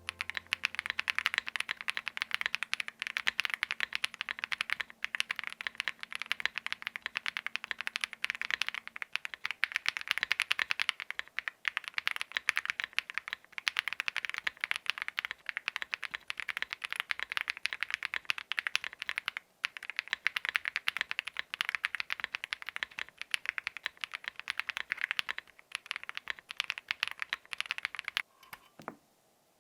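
Fast, continuous typing on a custom 96% mechanical keyboard (KBDfans Odin V2) with lubed Akko V3 Cream Yellow linear switches on a polycarbonate plate and double-shot PBT keycaps, with a few brief pauses between bursts. The typing stops shortly before the end.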